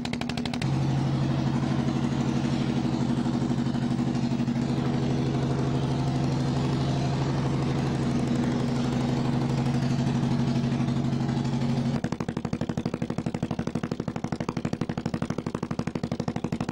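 Engine of a tour bus running at idle with a steady low hum and fast even pulsing. The strongest part of the hum drops away about twelve seconds in.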